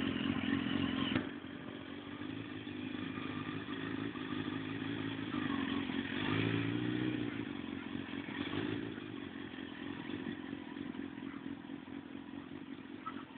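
Suzuki GSX-R1000 K1 motorcycle's inline-four engine running as the bike rides slowly across the lot, loudest in the first second, then dropping suddenly to a fainter, steady engine note as it pulls away.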